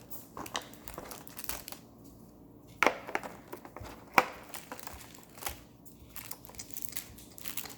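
Plastic packaging crinkling and rustling as small kit pieces are handled, with two sharper clicks about three and four seconds in.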